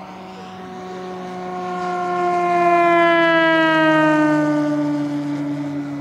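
Large electric RC model AT-6 Texan, its Axi motor spinning a 20-inch propeller, passing at speed. The propeller's buzzing tone swells to loudest about three to four seconds in and then fades, its pitch falling steadily as the plane goes by.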